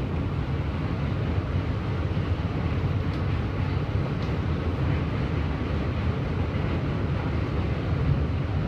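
Subway train running steadily, heard from inside the car: a continuous low rumble of wheels and motors with a fainter hiss above it.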